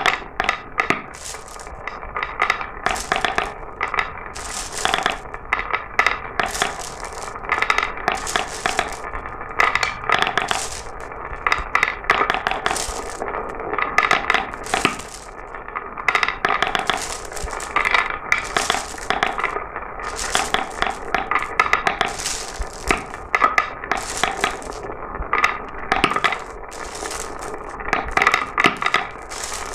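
Glass marbles rolling and clattering down a marble run track: a dense, unbroken stream of overlapping clicks and clacks over a steady rolling sound.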